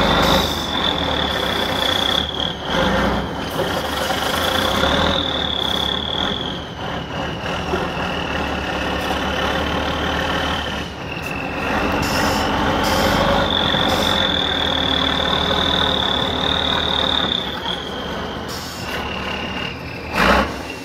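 Eight-wheeled off-road trial truck's engine working hard under load as the truck climbs a steep dirt slope, with a high whine that slowly rises and falls over it. Two sharp knocks come about a second apart near the end.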